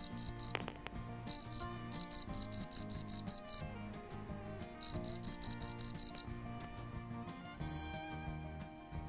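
Field cricket calling: bursts of fast, evenly spaced high-pitched chirps, about six a second, broken by pauses of a second or so, with a short final burst near the end. A faint steady high trill carries on between the bursts.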